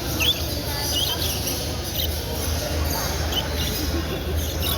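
Small caged birds chirping: short, high chirps about once a second over a steady low hum.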